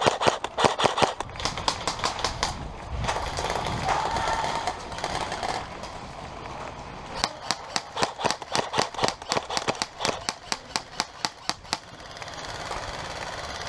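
Airsoft guns firing fast strings of sharp cracking shots, about six or seven a second. One string comes at the start and a longer one comes from about seven to twelve seconds in, with a scuffling pause between them.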